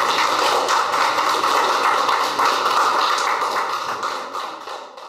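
Small audience applauding, dense hand clapping that fades away near the end.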